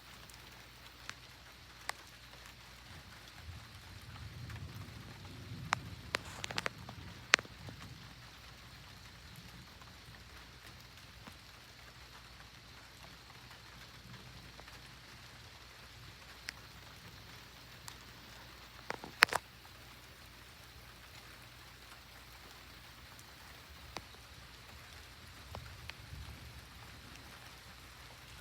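Steady rain falling during a night thunderstorm, with a few sharp ticks of drops striking close by. A low rumble of thunder comes a few seconds in.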